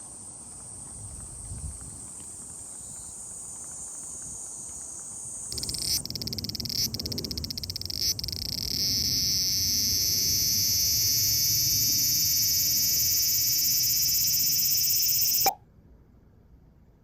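A cicada calling up close: a stuttering, pulsing start that builds into a loud, steady, high-pitched buzz, which stops abruptly near the end.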